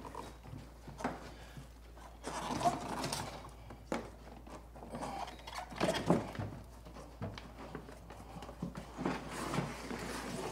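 Rubber floor mat of a Club Car Precedent golf cart being peeled up and dragged out of the floorboard. Irregular scraping and rustling, with a few sharp knocks.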